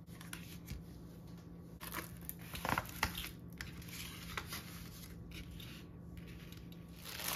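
Soft rustling of paper and plastic with a few light taps as craft items, among them a diamond painting canvas and metal cover minders, are laid out by hand on a tabletop. The rustles are loudest about two to three seconds in and again near the end.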